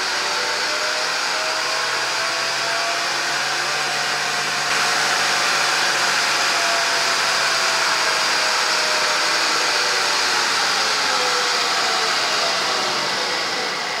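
2001 Ford F-150's 4.2-litre V6 engine running as the throttle plate is opened slowly by hand: the revs climb gently and then ease back down, over a steady rushing noise.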